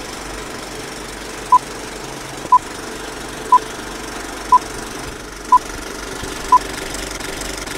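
Six short electronic beeps at one steady pitch, evenly spaced one second apart, over a steady line hiss: a broadcast feed's countdown cue tone before the programme starts.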